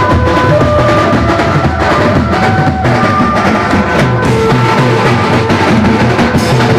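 Indian village band (desi band) playing live: bass drums with mounted cymbals beating a fast, dense rhythm, with a melody of held notes over them.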